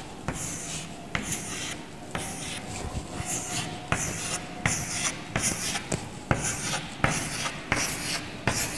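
Chalk drawing small circles on a blackboard: a string of short scratchy strokes, each starting with a light tap as the chalk meets the board, about one circle a second.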